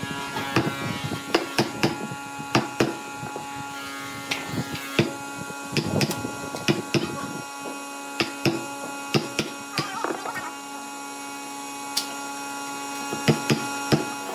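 A steel chisel knocking and levering in narrow saw kerfs in a hardwood block, with irregular sharp knocks and cracks as thin slivers of wood break out, a couple a second, easing off briefly about two-thirds of the way through. A steady hum runs underneath.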